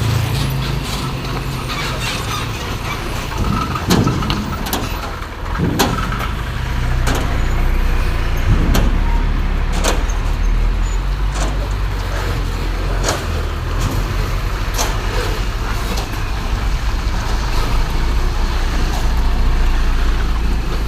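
Heavy trucks passing on a road: a steady low diesel engine rumble and tyre noise, with scattered sharp clicks and knocks.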